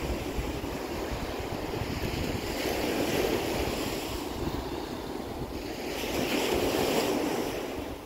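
Small ocean waves breaking and washing up the sand, swelling twice, with wind rumbling on the microphone.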